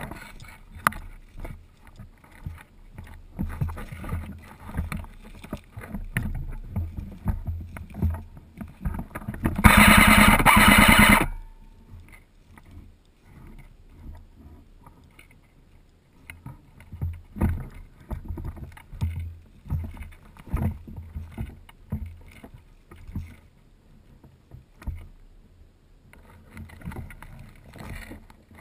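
An airsoft M4 electric rifle fires one fully automatic burst of rapid, evenly spaced shots lasting almost two seconds, about ten seconds in. Before and after the burst, irregular thuds and rustling of movement knock against the helmet camera.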